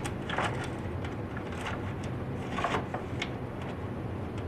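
A few light clicks and taps as the plastic parts of a disassembled Big Mouth Billy Bass are handled, over a steady low hum.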